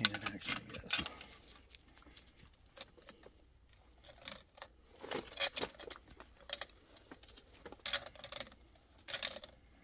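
Short metallic clinks and clicks at irregular intervals as metal tools and a brass gas-pipe fitting are handled and worked together, with a cluster in the first second and a half and single clinks after that.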